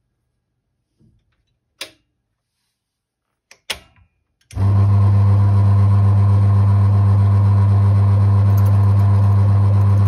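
Key duplicating machine: a few sharp metal clicks as the key vises are clamped shut, then about halfway through its electric motor switches on and runs with a loud, steady low hum, spinning the cutting wheel and wire brush.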